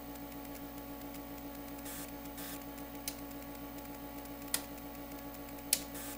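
Steady electrical hum from powered bench test equipment, with three sharp clicks spread through the second half.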